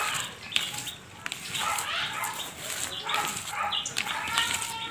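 Hands tossing a salad in a plastic bowl, with rustling and handling noise, while farmyard animals call in the background.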